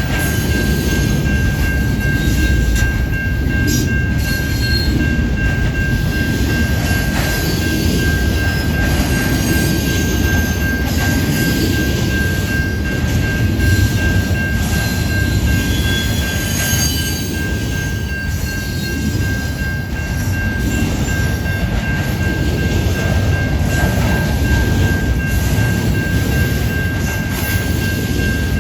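CN intermodal freight train rolling along the rails: a steady, loud rumble of wheels and railcars, with a steady high tone over it and short high wheel squeals about halfway through.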